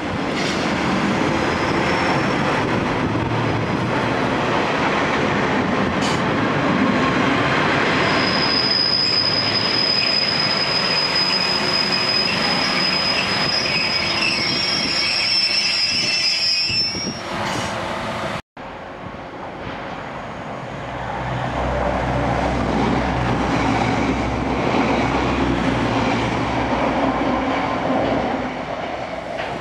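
Class 142 Pacer diesel railbus running in along the platform, with a long steady high-pitched squeal for several seconds. After a sudden cut, a Class 185 diesel multiple unit approaches with a low steady engine drone.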